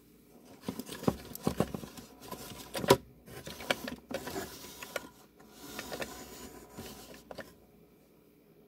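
Hands handling and repositioning a toy truck on a display turntable: an uneven run of clicks and knocks with rubbing in between, the loudest knock about three seconds in.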